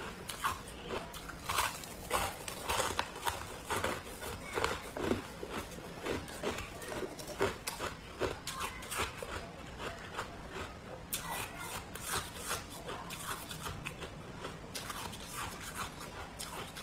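Freezer frost being bitten and chewed: a rapid, irregular run of crisp crunches and crackles.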